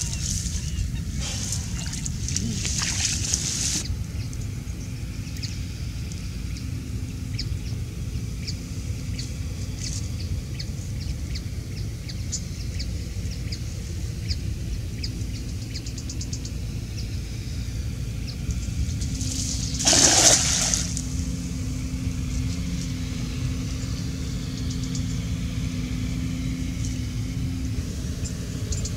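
Cast net splashing into and out of lagoon water: rustling and splashing in the first few seconds, then one loud splash about twenty seconds in, over a steady low rumble.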